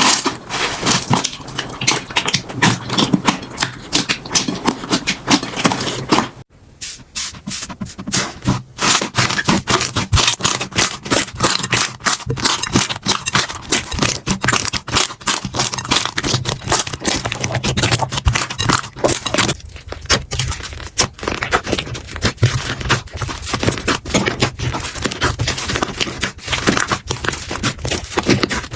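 Slime being squeezed and worked by hand, giving a dense, continuous run of sticky clicks and crackles. It breaks off briefly about six and a half seconds in and again about twenty seconds in.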